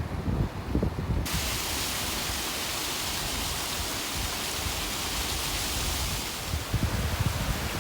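Steady full rushing hiss of falling water from a waterfall, cutting in suddenly about a second in. Low wind buffeting on the microphone at the start and again near the end.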